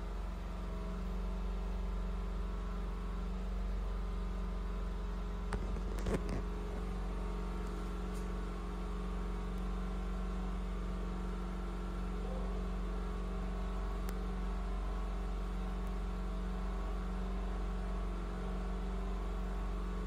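A machine running with a steady hum of several held tones. A brief cluster of clicks about six seconds in.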